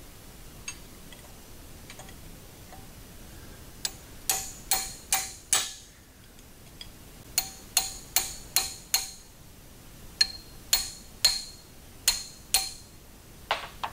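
Large ratcheting combination wrench clicking on the big nut of a hydraulic floor jack's pump block clamped in a vise. There are three runs of five or six sharp, ringing metal clicks, about two a second, with short pauses between runs and one more click near the end.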